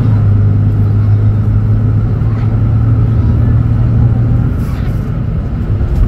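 Mercedes-Benz OM936LA Bluetec 6 six-cylinder diesel of a stationary O500U city bus idling, a steady low drone that eases off about five seconds in.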